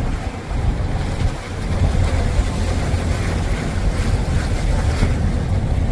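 Waves breaking on the shore under heavy wind buffeting the microphone, a steady, gusting rumble.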